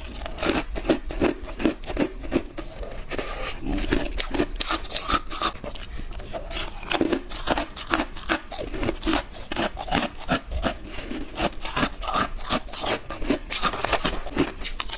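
White ice being bitten and chewed close to the microphone: a steady run of sharp, crackly crunches, several a second.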